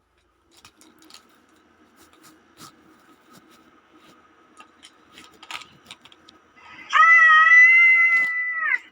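Faint clicks and a low hum for about seven seconds, then a cat gives one long, loud yowl at a steady pitch, dropping as it cuts off about two seconds later.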